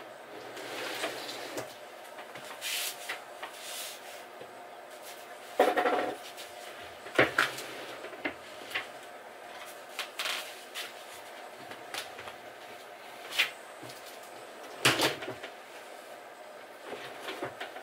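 Plywood kitchen drawer cabinet being handled and worked into place: irregular wooden knocks and bumps, the loudest about six seconds in and another strong one near fifteen seconds.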